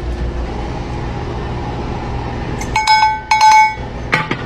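A metal cowbell used as a counter service bell is rung twice, about half a second apart. Each clank rings briefly with a metallic tone, followed by a shorter knock near the end, over a steady low hum.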